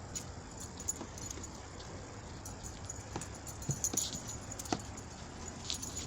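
A dog's collar tags jingling faintly, with scattered light clicks and steps over a steady low background.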